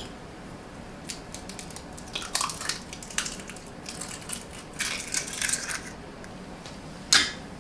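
Eggshell crackling and crunching as a hand-cracked egg is pulled open over a bowl, in a few small scattered crackles, with one sharper click near the end.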